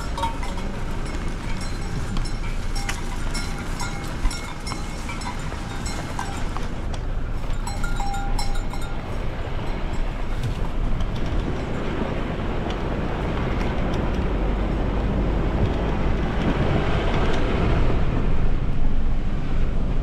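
Car rolling slowly along a rough dirt road, a steady low rumble of engine and tyres on gravel that grows a little louder near the end. Light repeated clinks sound over the first half.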